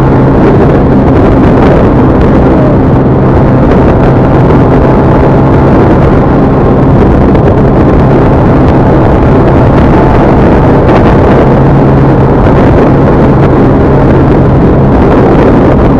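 Steady vehicle engine and road noise with a constant low hum, recorded very loud and distorted.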